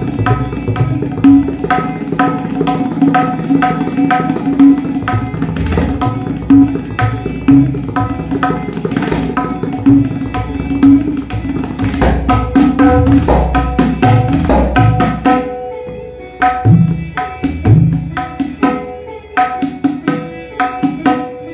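Tabla playing a fast rela in rupak taal on dhere-dhere-kete-tak and dha-tere-kete-tak bols. The ringing dayan and the deep bayan strokes run in a dense, even stream. About three quarters of the way through, the playing turns quieter and sparser, down to spaced single strokes near the end.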